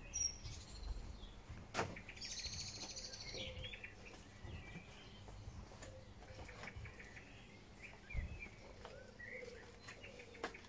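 Small birds chirping in short, scattered calls, with a sharp knock about two seconds in.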